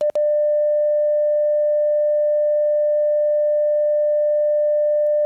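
Steady line-up tone from a broadcast videotape's program slate: a single held mid-pitched tone, broken by a brief dropout just after it begins.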